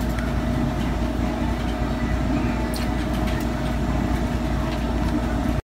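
Steady mechanical drone: a constant low rumble with a faint hum of steady tones over it, unchanging throughout.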